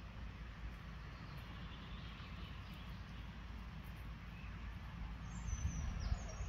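Low rumble of wind on the microphone with small birds chirping, and a high, falling bird call near the end.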